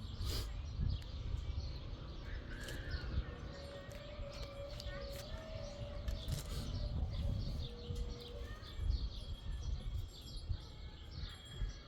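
Small birds chirping over a steady low rumble, with a faint drawn-out tone in the middle.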